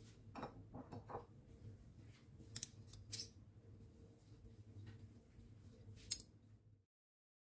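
Metal spoons clinking against each other and the pot as pieces of butter are scraped off onto the rice: a few sharp light clicks, the last the loudest, over a low steady hum.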